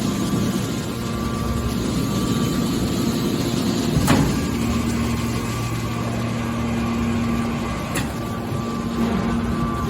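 Horizontal hydraulic metal baler running: a steady hum from its motor and hydraulic pump, with a knock about four seconds in and a sharper click near eight seconds.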